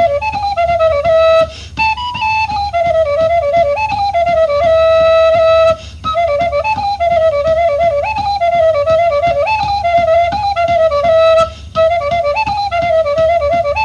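A flute plays a fast, ornamented pravo horo folk-dance melody in a fairly low register, breaking off briefly three times as if for breath, over a low rhythmic pulse.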